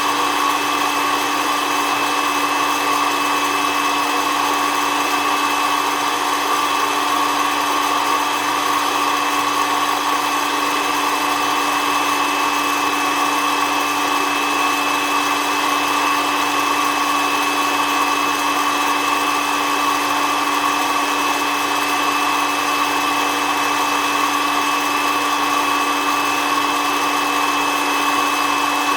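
SOUYI SY-121N coffee roaster running with its fan blowing: a steady whirring hum with fixed tones and no crack pops audible.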